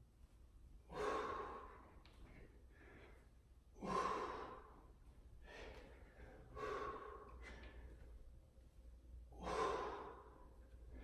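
A man breathing hard from exertion during plank rotations: a loud, breathy exhale about every three seconds, four in all, with quieter breaths between.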